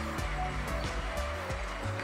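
Background music with held low bass notes.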